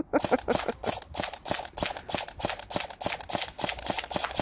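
G&P M14 airsoft electric gun cycling in a steady rapid string, about seven sharp clicks a second.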